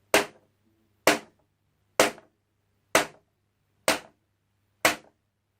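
A sheet of paper struck six times at an even pace of about one strike a second, each a short, dry snap that dies away almost at once.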